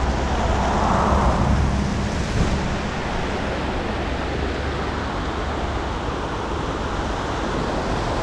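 Mountain stream rushing as a steady wash of water noise, with a low rumble in the first couple of seconds.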